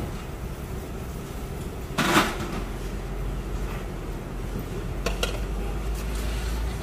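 Metal pots, lids and steel bowls clattering as a cook works at the stockpots: one loud clang about two seconds in, then a few lighter clinks around five to six seconds in, over a steady low rumble.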